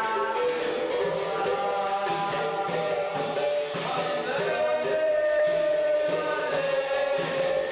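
Capoeira music: voices singing a chant with long held notes over berimbaus and an atabaque drum.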